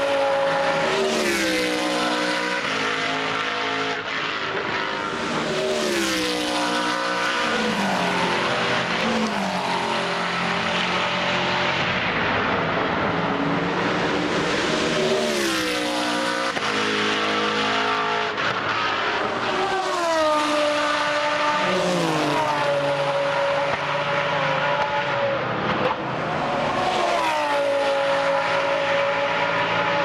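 GT3 race cars passing one after another at speed, several engines running at high revs at once. Each car's note falls in pitch as it goes by, with a new car arriving every few seconds.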